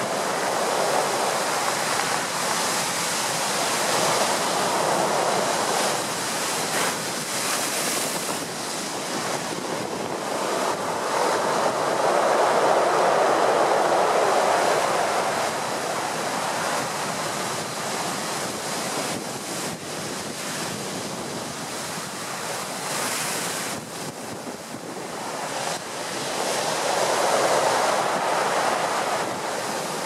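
Heavy surf breaking at high tide against a sea wall and wooden groynes, a continuous rushing roar that swells and eases with the waves, loudest near the middle and again near the end. Strong wind buffets the microphone throughout.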